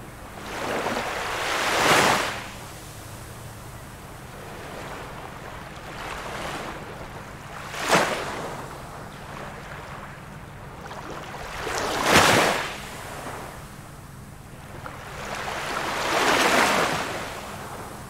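Ocean waves breaking on a beach: four waves, each rising to a rush and falling back, with a steady wash of surf in between.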